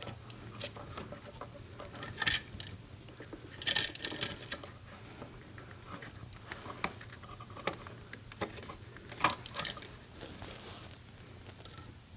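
Scattered small clicks, taps and scrapes of hand tools and a copper ground wire being worked onto the green ground screw of a wall outlet, the loudest about 2, 4 and 9 seconds in.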